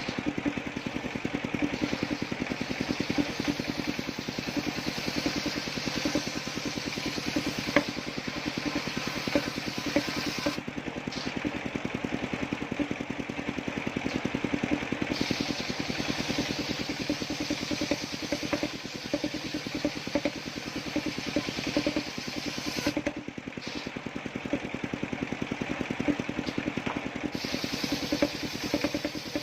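Engine-driven circular saw of a homemade sawmill running steadily with a fast, even pulse, sawing a coconut trunk. A higher hiss of the cut comes and goes, dropping out briefly about ten seconds in and again for several seconds near the end.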